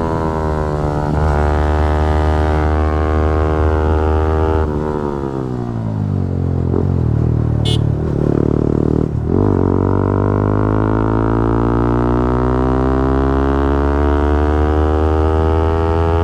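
Yamaha R15 V4's single-cylinder engine running at high revs under throttle. The revs fall for a few seconds as the bike slows, then there is a brief break about nine seconds in, and the pitch climbs steadily as the bike accelerates hard.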